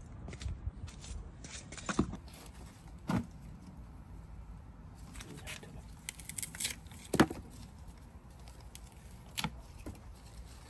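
Scattered light knocks and rustling as freshly pulled onions and their green tops are handled and trimmed with a knife, with one sharper knock a little past halfway.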